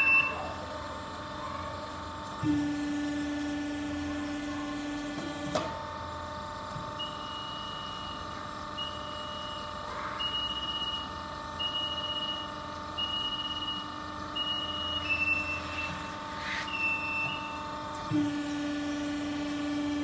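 WHINFU SP32 hydraulic hose crimper's electric motor and hydraulic pump running steadily with a constant hum, the sound deepening and growing louder for a few seconds twice, as the pump takes load to drive the crimping dies. Between the two loaded strokes a string of short high electronic beeps sounds, about one every second and a half.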